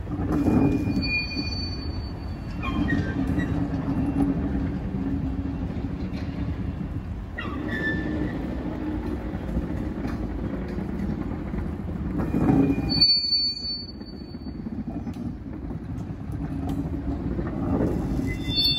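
Sorefame stainless-steel passenger coaches rolling slowly over yard tracks: a steady low rumble of the wheels with clicks over the rail joints, and brief high-pitched wheel squeals about a second in and again around thirteen seconds in.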